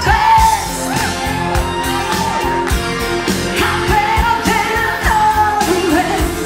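Pop song with a woman singing the lead into a microphone over a steady beat.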